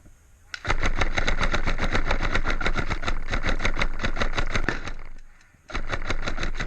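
Airsoft gun firing on full auto: a long rapid burst of evenly spaced shots, a short pause about five seconds in, then a second burst.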